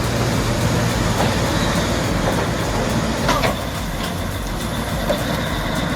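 Heavy diesel engine of earth-moving machinery running steadily under load, with a brief knock about three seconds in and a faint high whine after it.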